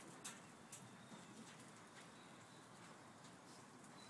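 Near silence, with a few faint short clicks, the clearest about a quarter second in and another just under a second in.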